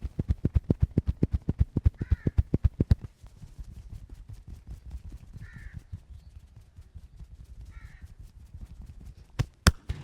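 Fast rhythmic slapping of hands on a body, about nine strokes a second, breaking off about three seconds in into softer rubbing. Two sharp snaps come close together near the end. Crows cawing now and then in the background.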